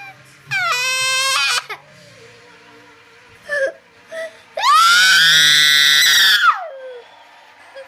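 A young girl crying hard. There is a wail about half a second in, a couple of short sobs, then a long, high wail of about two seconds that rises at the start and falls away at the end.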